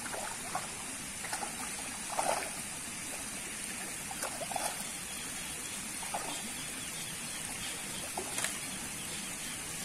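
Soft, steady trickle of pond water, with a few faint short sounds now and then.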